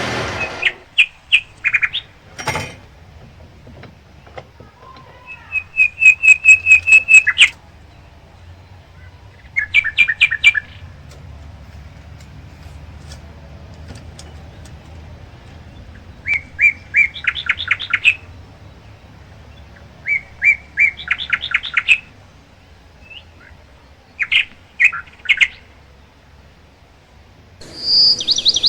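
A songbird singing in short bursts of rapid chirps, repeated every few seconds. A single knock about two and a half seconds in.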